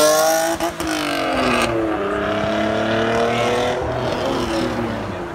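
Acura NSX's V6 accelerating hard away, its pitch climbing through the gears with quick upshifts about 0.7 s and 2 s in, then fading as the car drives off.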